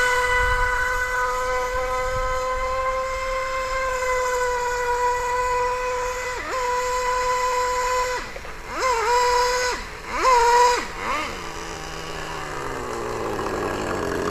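Two-stroke engine of a radio-controlled outrigger hydroplane racing boat, running at a steady high-pitched whine at speed. About halfway through, its pitch dips and recovers several times. Then it drops to a low, slowly falling note as the boat slows near the end.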